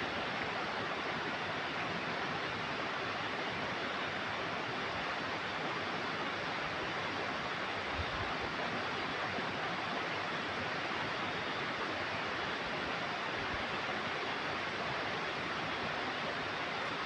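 Steady rush of flowing river water, an even hiss with no rhythm, with a faint low bump about eight seconds in.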